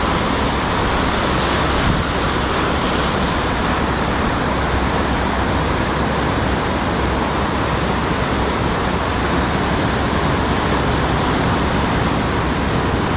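Steady rush of surf breaking and washing over a rocky shoreline, mixed with wind on the microphone.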